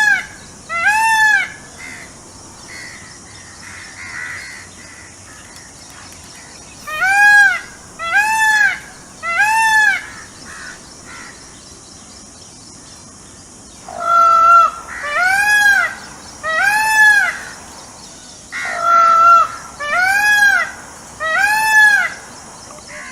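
Peacock calling loudly in repeated series, each call rising and then falling in pitch. Two calls come at the start and three a few seconds later; the last two series each open with a flat held note followed by three of the arching calls.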